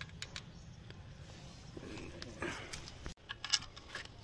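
Faint metal clicks and handling noise from a car seat recliner mechanism being worked by hand, over a low steady hum.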